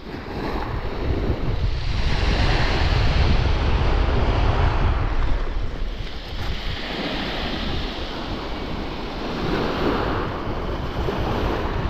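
Sea waves breaking and washing over a shingle beach, surging every few seconds, with strong wind buffeting the microphone.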